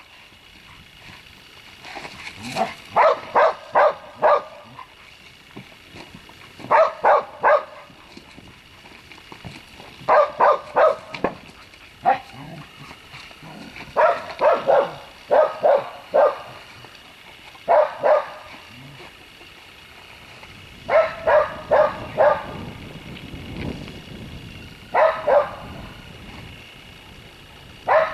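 Dog barking in quick runs of two to four barks, a run every few seconds.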